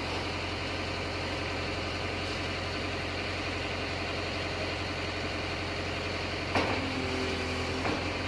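Heavy diesel engine idling steadily, a low even hum, with two short knocks near the end.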